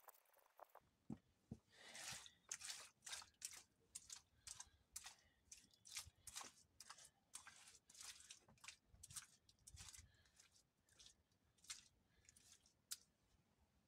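Faint, repeated scraping strokes, about two a second.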